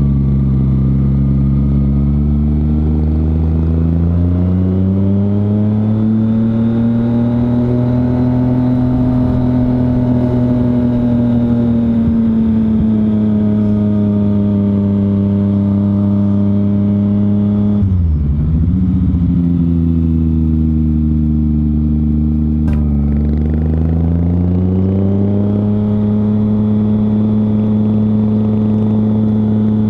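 Motorcycle engine running under load, heard from the rider's own bike: the engine note climbs over the first few seconds, eases down, drops sharply with the throttle closed about eighteen seconds in, then climbs again. A single short click sounds about two-thirds of the way through.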